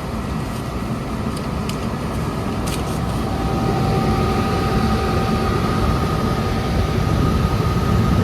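Furnace blower running, air rushing through the return, with a steady low hum that grows a little louder. Two steady whining tones come in about three to four seconds in.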